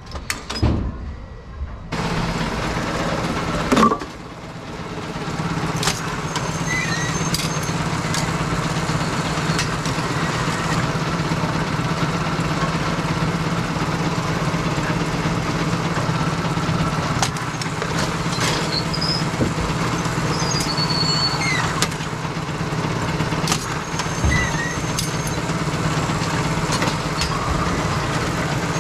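Brunswick A-2 pinsetter running: a steady motor-and-drive hum with scattered clanks, knocks and short high squeaks. A sharp bang comes about four seconds in.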